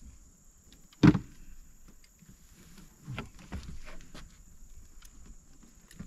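Knocks on a boat: one sharp, loud knock about a second in, then a run of softer knocks and small clicks a couple of seconds later. A steady high whine runs underneath.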